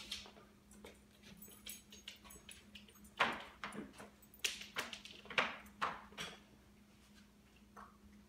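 A run of short knocks and rattles, loudest and most frequent in the middle few seconds, as a small dog climbs into a wire crate and a person walks on a laminate floor.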